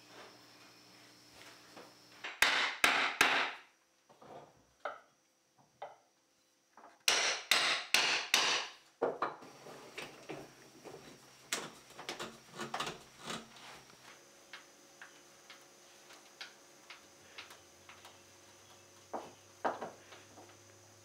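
Hammering on wood in two quick bursts of about five and six sharp blows, a few seconds apart. Softer scattered clicks and knocks of hand tools working the wood follow, including a carpenter's brace being turned.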